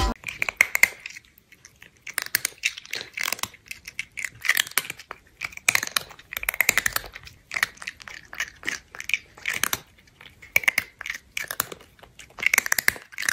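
Chewing and eating mouth sounds in short, irregular clusters of crackly clicks with brief pauses between them.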